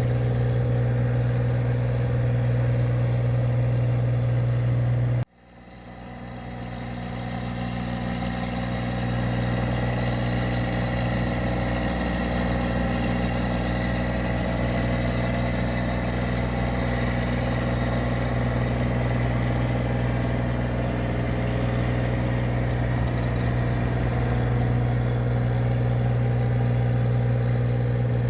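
A rice paddy machine's engine running at a steady speed with a constant low hum. About five seconds in the sound cuts out abruptly, then swells back over a few seconds and runs on steadily.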